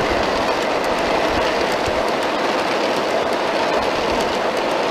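Steel-wheeled 1:29-scale model coal hopper cars rolling past on garden-railway track: a steady rolling rattle with light clicks from the wheels.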